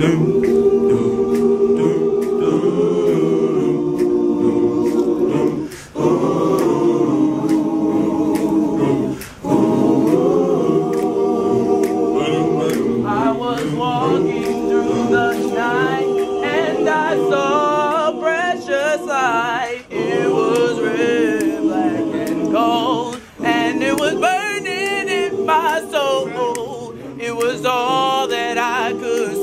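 An a cappella choir singing held chords, phrase by phrase with short breaks between them. From about halfway, higher voices with a wavering vibrato sing over the chords.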